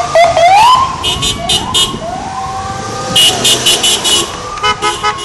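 Several sirens on passing escort vehicles, sweeping up and down in pitch and overlapping one another. Bursts of short, rapid horn blasts come about a second in, around three seconds in and again near the end.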